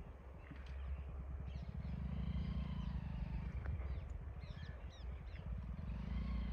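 Small motorcycle engine running at low revs with an even, fast pulse. Birds call over it.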